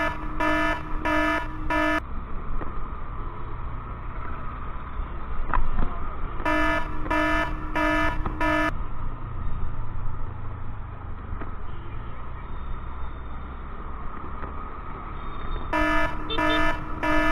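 Electronic beeper sounding in three sets of four short pitched beeps, about two beeps a second: at the start, about seven seconds in, and near the end. Underneath, wind rushes and a scooter runs on the road.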